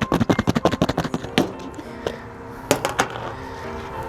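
Sauced chicken wings being shaken in a bowl to coat them: a fast run of clattering knocks for about the first second and a half, then a few single knocks. Faint background music underneath.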